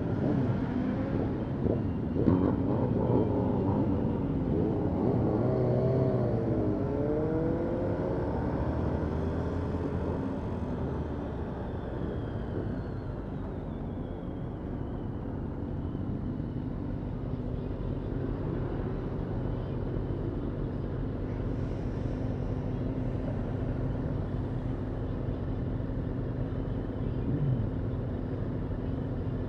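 Several motorcycle engines, the rider's Yamaha MT-125 among them, revving and accelerating as the group pulls away, their pitches rising and falling over one another for the first ten seconds or so. The bikes then slow, and the engines settle into a steadier, quieter idle while stopped at a traffic light.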